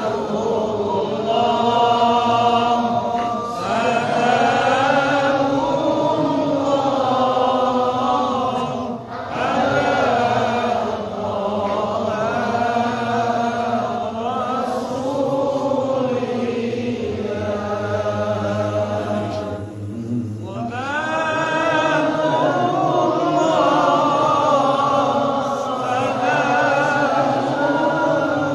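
Melodic Quran recitation (tilawah): a single voice chanting long, ornamented phrases that rise and fall in pitch, with short breath pauses about nine seconds in and again about twenty seconds in.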